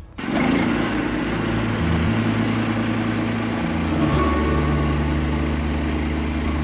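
Portable bandsaw sawmill's gas engine running at steady speed, with a dense mechanical din; its low pitch shifts twice.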